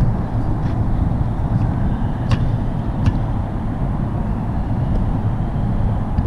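Steady low rumble of wind buffeting the camera microphone, with two short sharp clicks about two and three seconds in.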